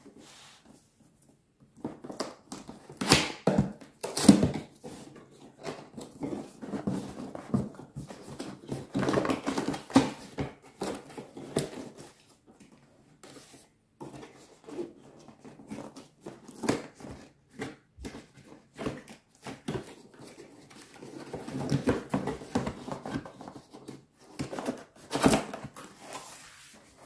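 Cardboard box being opened by hand: irregular scraping and rustling as the lid's tabbed flaps are worked free and the lid lifted, with a few sharper knocks.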